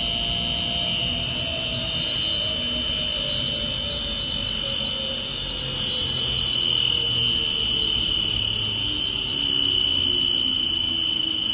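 Drive of a 1600-litre double sigma blade kneader mixer slowing down after being switched off from top speed, its hum falling slowly in pitch over a steady high-pitched whine.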